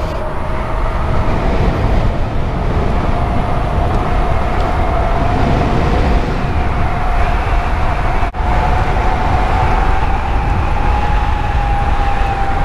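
Electric motor of an Onyx RCR ebike whining under way, its pitch climbing slowly and easing a little near the end, over heavy wind rush on the microphone. The sound cuts out for an instant about two-thirds of the way through.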